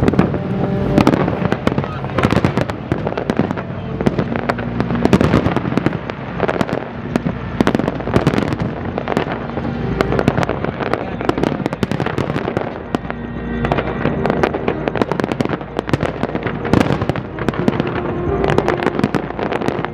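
Aerial firework shells bursting in a dense, continuous barrage of overlapping bangs and crackles, with music playing underneath.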